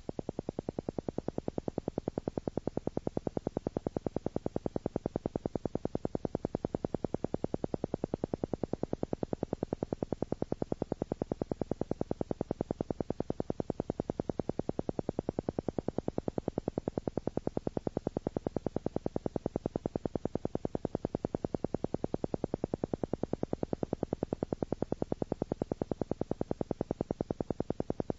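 Theta brain-wave audio: a steady electronic tone pulsing on and off many times a second. It is low and buzzy, with a faint hiss above it.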